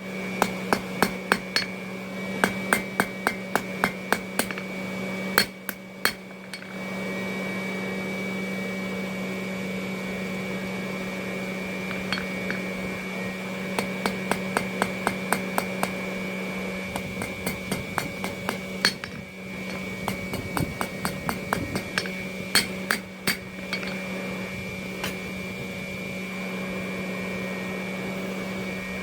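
Blacksmith's hammer striking hot steel on an anvil in runs of quick blows, about three a second, with pauses between the runs. A steady hum runs underneath.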